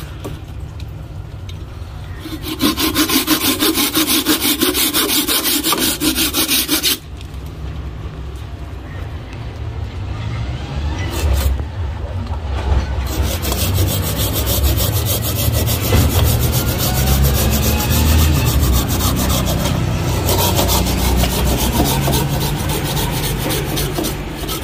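Hand pruning saw cutting through the woody roots of a wild yellow apricot (mai) tree stump, quick back-and-forth strokes rasping through the wood. The sawing is quieter for the first couple of seconds, then louder.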